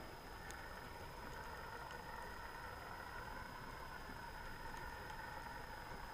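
Steady mechanical hum heard underwater, with a few faint clicks.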